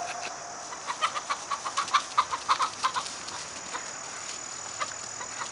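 Domestic chickens clucking and squawking: a fast run of short, sharp calls, about six a second, for some two seconds, then a few scattered calls. These are the alarm calls of hens being chased by a dog.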